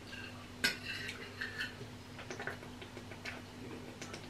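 Fork and knife clinking and scraping on a plate: one sharper clink with a short ring about half a second in, then scattered light ticks and scrapes.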